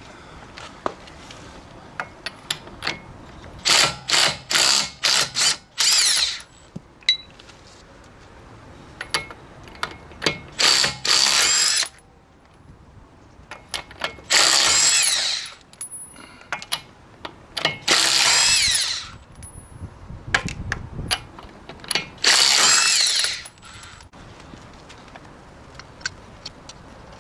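Makita TD172D cordless impact driver run in repeated trigger bursts: several quick blips, then four runs of about a second each, the motor whining up in pitch each time.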